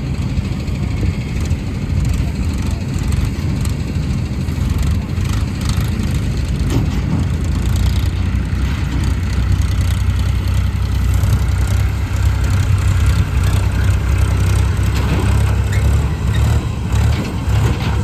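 Balkar 654 combine harvester running, a steady low engine rumble that grows a little stronger about halfway through.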